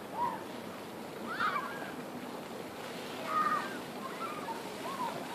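Splash-pad fountain water falling steadily, with scattered short high shouts from children playing, about five of them.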